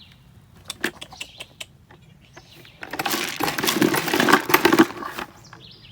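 A few sharp clicks, then about two seconds of loud rattling from feed grain shaken in a container to call goats.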